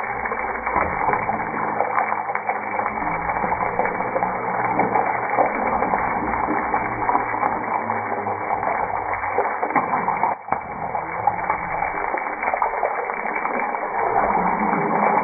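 Boiled eggs frying in hot oil in a pan, the oil sizzling and crackling steadily, with a brief dip about ten seconds in.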